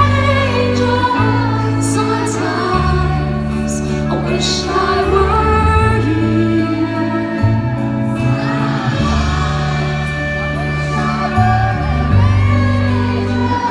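A live pop band playing with a singing voice: sustained bass and keyboard chords that change every second or two under a melodic vocal line, heard in a large concert arena.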